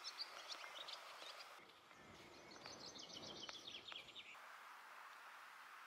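Faint outdoor ambience with small birds chirping: scattered short high chirps and a quick run of notes around the middle, over a soft steady hiss that is left alone near the end.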